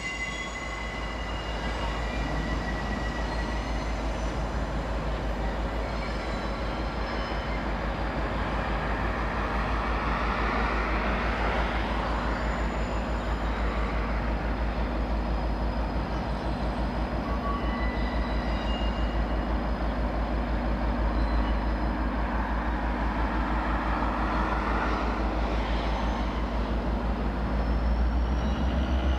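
Diesel locomotive hauling a loaded ore train on approach, its engine a steady low rumble with an even pulse. A hiss swells about a third of the way in and again near the end.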